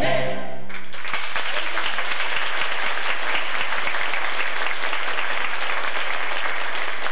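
A live choir's final held chord cuts off about a second in, and then an audience applauds steadily.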